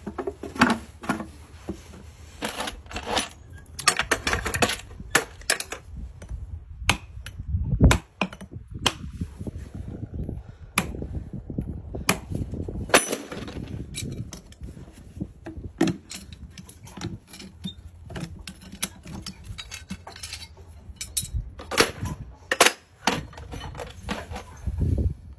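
Farrier's shoe pullers prying a horseshoe off a horse's hoof: irregular metallic clicks, clinks and scrapes as the nails are levered out, with a few duller thumps.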